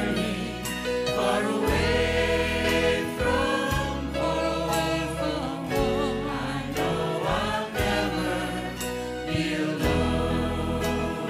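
Gospel music performed live: a choir singing held, wavering notes over a band with a steady bass line and drums.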